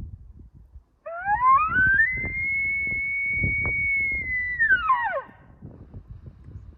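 An elk bugle: one long whistle about four seconds long that climbs steeply, holds high and steady, then drops away.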